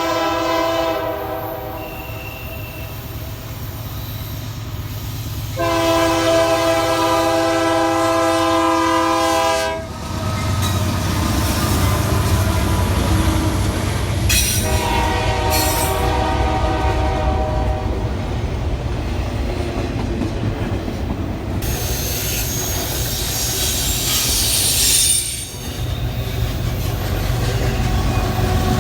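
Locomotive air horn sounding three times: one blast fading out in the first second, a long blast of about four seconds, then a shorter one. The train then rolls by with a steady low rumble of wheels on rail and a high wheel squeal late on.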